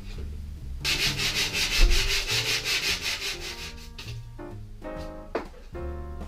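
Sandpaper on a sanding block rubbed briskly back and forth over a plywood panel, a rapid even scratching of several strokes a second. It starts about a second in and stops about four seconds in, leaving background music.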